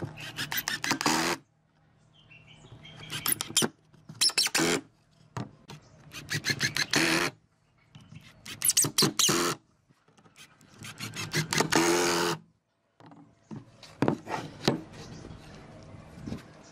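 Ozito cordless impact driver driving long screws into wood. It hammers in a series of short bursts, each a second or so long, with brief pauses between them.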